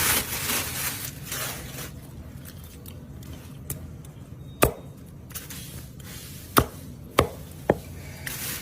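A knife chopping through a broiler chicken on a cutting board: four sharp chops in the second half, the last three in quick succession, after a couple of seconds of softer rustling and handling.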